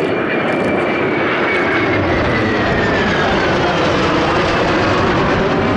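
Jet engines of a Panavia Tornado and an AMX flying past in formation: a steady rush of jet noise with a whine that falls in pitch over the first few seconds as they pass.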